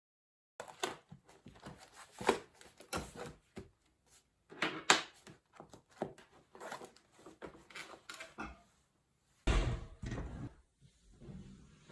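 A string of knocks, clicks and clatters of objects being handled, with a heavier thump about nine and a half seconds in.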